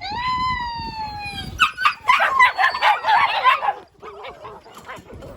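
A husky-puppy whining sound effect: one long whine sliding slowly down in pitch. It is followed by about two seconds of a loud, dense chorus of high puppy squeals, yelps and barks, which drops to scattered quieter whimpers near the end.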